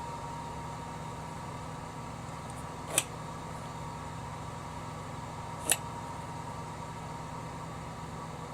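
Steady fan-like hum with a faint high whine, broken by two sharp clicks, one about three seconds in and another near six seconds.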